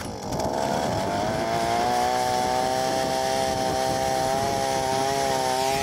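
Gas-powered ice auger's engine running at high speed while its bit drills through lake ice. The pitch dips briefly at the start, then holds steady.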